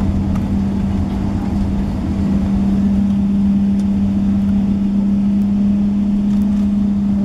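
Cabin noise of a Boeing 777-300ER rolling out on the runway after touchdown, spoilers raised: a steady rumble from the engines and wheels with a steady hum running through it, swelling slightly a couple of seconds in.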